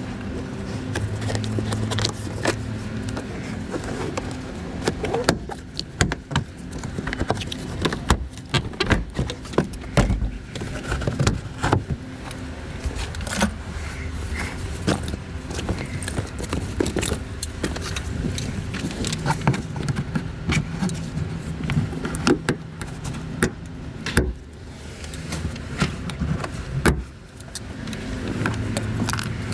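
Hand tools and car interior trim being handled: scattered clicks, knocks and clinks at an irregular pace, over a steady low hum.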